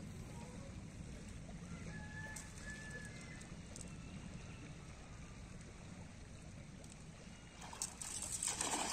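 A weighted cast net is flung out and lands on a shallow river near the end, a spreading rush of splashing that is the loudest sound here. Before it there is only a low steady outdoor background with a few faint high chirps about two seconds in.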